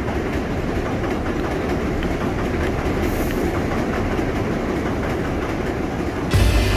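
New York City subway train running steadily over an elevated steel viaduct. Music comes in just before the end.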